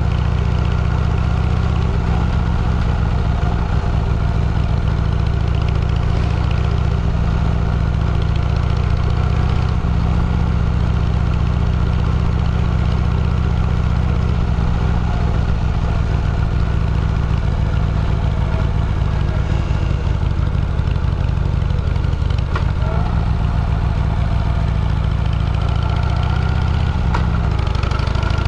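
Motorcycle engine running steadily at an even, low pulse, with the pitch climbing as it picks up revs near the end.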